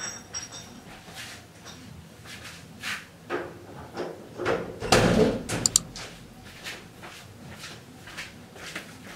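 Scattered knocks and clatter of household doors or cupboards being handled, the loudest cluster about five seconds in, followed by a few sharp clicks.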